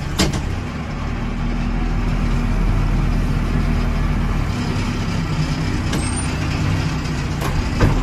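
Case 580 Super M backhoe's four-cylinder diesel engine running steadily, heard from inside the cab, with a few sharp clicks, one near the start and a couple near the end.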